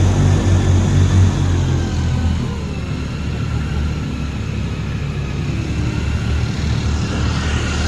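Airboat's engine and propeller running, heavy and steady, easing off about two seconds in to a lower, rougher drone.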